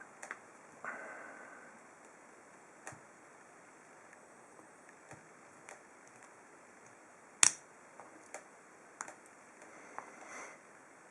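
Scattered light clicks and taps from a padlock and its small metal parts being handled during disassembly, with one sharp, louder click about seven and a half seconds in.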